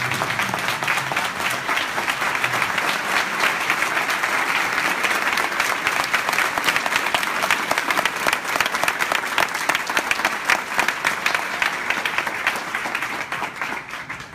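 Audience applauding in a standing ovation, dense clapping that dies away near the end.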